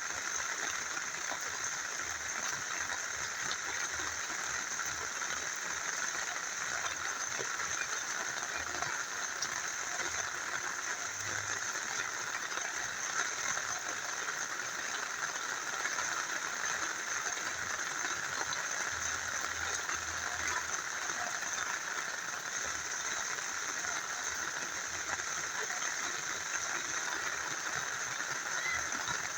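Steady rain together with a small river flowing: an even, unbroken hiss of water.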